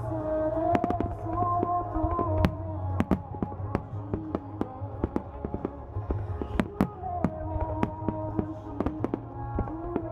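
Fireworks shells bursting in rapid, irregular succession, sharp bangs and crackles, over music with a singing voice carrying a slow melody.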